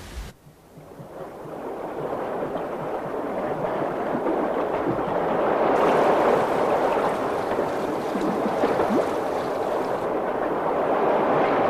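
Rushing, churning water with wind: a steady hiss that swells over the first two seconds or so and then stays loud.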